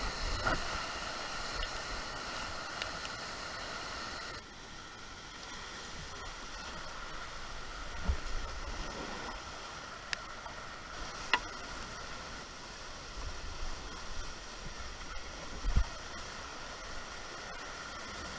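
Rushing floodwater of a small creek in spate, a steady noise heard from a canoe running the rapids, dropping a little about four seconds in. A few knocks and low thumps sound over it, loudest near the end.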